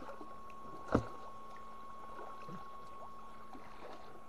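Water splashing in a shallow, muddy fish pond as a fish is grabbed by hand, with scattered small splashes and one louder thump about a second in.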